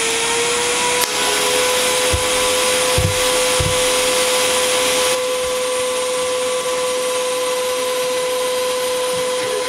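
DC TIG welding arc from an HTP Inverarc 200 TLP at about 52 amps on thin 304 stainless steel: a steady hiss with a constant buzzing tone. A few soft low thuds come a couple of seconds in, and the hiss eases slightly about halfway.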